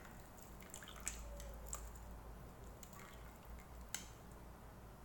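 Wet instant noodles being lifted out of a stainless steel bowl of water with chopsticks and a strainer ladle: faint dripping and squishing, with a few light clicks, the sharpest about four seconds in.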